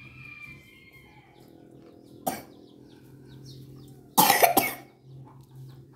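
A woman coughing while eating spicy sambal: one short cough a couple of seconds in, then a louder double cough past the middle, over a low steady hum.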